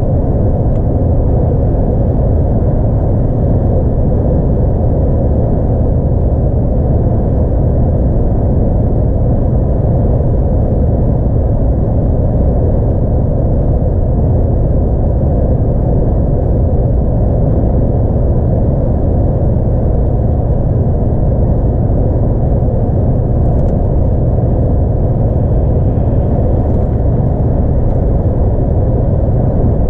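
Steady low rumble inside the cab of a DAF XF 106 truck driving on a highway: its 10.8-litre PACCAR MX-11 six-cylinder diesel running under even load, mixed with tyre and road noise.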